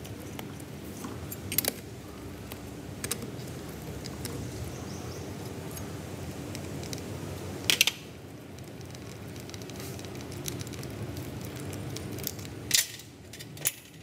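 Metal clinks and taps of a hex tool, screws and loose parts as the mechanical governor housing is unbolted from a PE inline diesel injection pump, over a steady low hum. The loudest clink comes about eight seconds in, with two more near the end.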